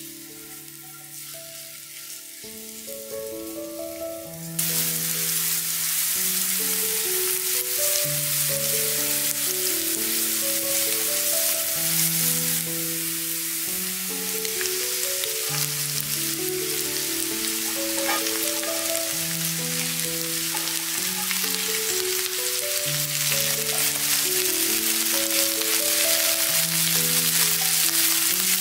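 Food sizzling and frying in a hot pan, a steady crackling hiss that turns abruptly louder about four and a half seconds in, under background music with a slow melody.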